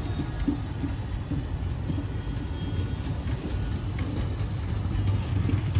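Indian Railways passenger coaches rolling past on the track: a steady rumble of wheels on rails, with a few sharp clicks.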